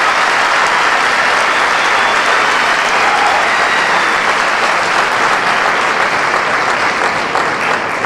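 Large audience applauding steadily, the clapping easing off slightly near the end.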